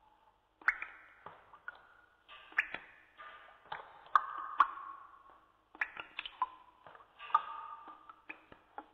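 Sparse background music of single struck, ringing notes, one to three a second, each fading out, over a faint steady low drone.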